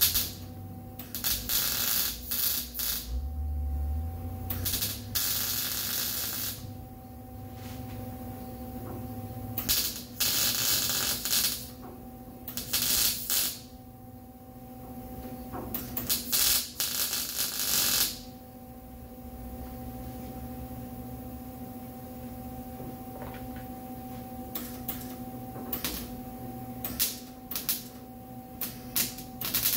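Wire-feed (MIG) welder arcing on sheet steel, a crackling sizzle in bursts of one to two seconds with pauses between: tack and plug welds on a replacement trunk gasket channel. Near the end come a run of very short tacks.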